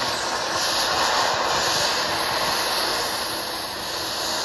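Gas torch flame hissing steadily, preheating a solid 2-inch steel hex adapter toward cherry red before welding.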